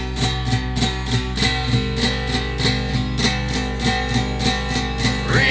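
Song's instrumental passage: strummed guitar over a steady beat and sustained bass notes, with a voice starting to sing right at the end.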